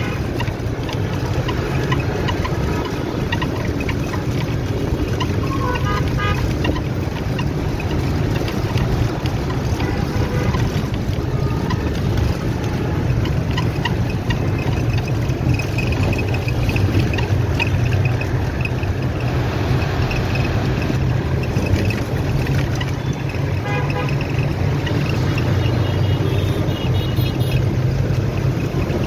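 Steady low rumble of a moving vehicle heard from inside, with road and wind noise, and short horn toots from other traffic a few times.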